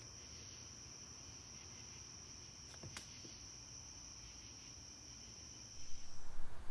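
Steady high-pitched drone of summer insects, crickets or cicadas. It holds one unbroken high tone, then stops near the end as a louder rushing noise rises.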